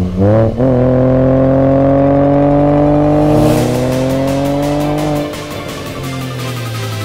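Renault Clio V6's 3.0-litre V6 engine revving under acceleration. After a quick blip at the start, the revs climb steadily through a gear, then drop about five seconds in. Music with a beat comes in from about halfway and grows louder.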